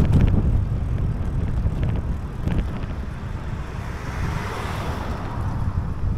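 Wind buffeting the microphone of a camera moving along a street, over a steady low rumble. There are a few short knocks near the start and again about two and a half seconds in. A hiss swells and fades about four to five seconds in.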